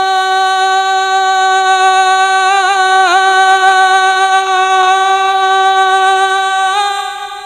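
A man singing a naat, holding one long note with a few wavering ornaments around the middle and near the end, then letting it fade out.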